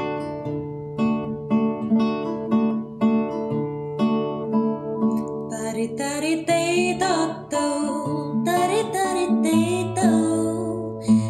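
Nylon-string classical guitar fingerpicked in a steady pattern; about halfway through a woman begins singing over it.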